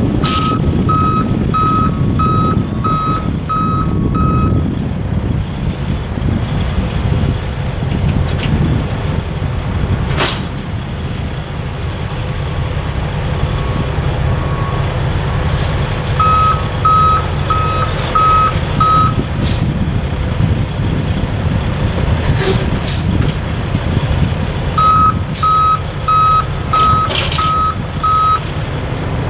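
A vehicle backup alarm beeping in three bursts of five or six beeps, over the steady low rumble of a diesel engine idling. A few sharp knocks come in between.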